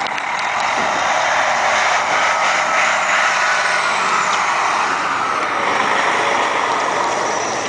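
A truck driving across a snowy parking lot, heard as a steady rushing noise.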